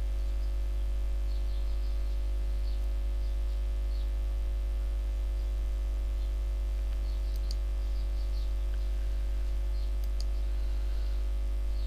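Steady low electrical hum with a few fainter steady tones above it, faint high chirps scattered through, and a few sharp clicks in the second half.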